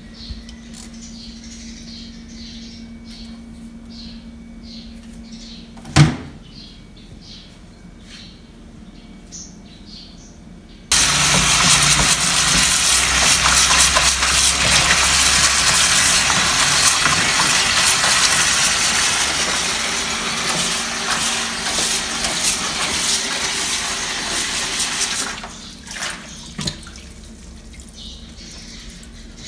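Kitchen tap turned on about a third of the way in: water runs hard into a plastic bowl of Chinese chives in a stainless steel sink as they are rinsed, and is shut off suddenly about fourteen seconds later. Before the tap opens, quieter handling with one sharp knock.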